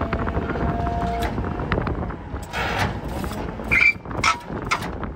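Hydraulic outrigger leg of a bucket truck being lowered, with the truck's Cummins diesel running underneath. A steady whine from the hydraulics fills the first second and a half. Several sharp metal clunks and one brief high squeak follow in the second half.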